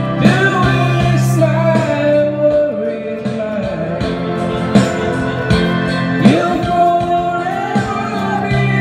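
Karaoke: a voice singing held, gliding notes through a microphone over a backing track with guitar and a steady beat.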